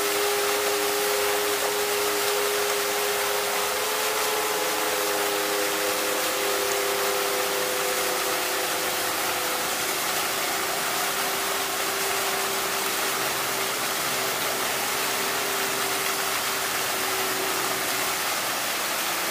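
Fountain jets spraying, a steady hiss of water, with a few long steady tones held underneath that fade out near the end.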